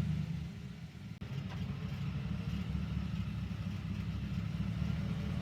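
Chevrolet Silverado pickup's engine idling steadily just after being started, its start-up flare settling within the first second.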